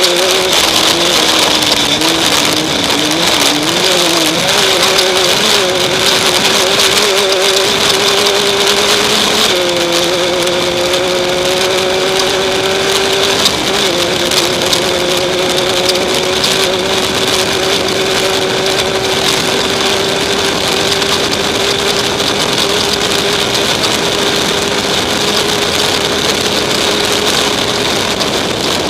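Off-road race vehicle's engine running hard at speed, heard on board over a steady rush of wind and terrain noise. Its pitch wavers for the first few seconds, shifts about ten seconds in, then climbs slowly.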